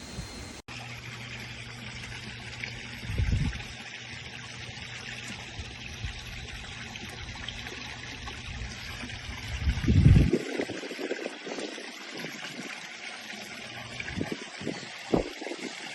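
Pool water trickling and splashing, with a low steady hum that stops about ten seconds in and a few dull bumps.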